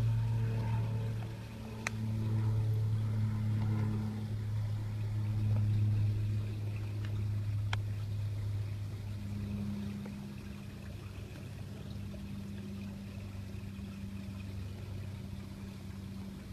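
A steady low motor hum, a little quieter after about ten seconds, with two sharp clicks about two and eight seconds in.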